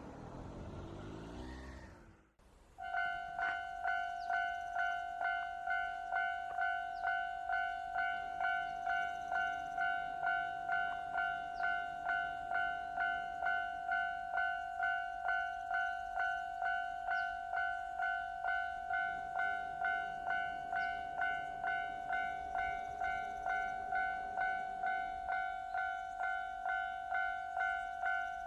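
Japanese level-crossing electronic warning bell starting up and ringing steadily, a little under two dings a second. Before it, about two seconds of rushing noise cut off abruptly.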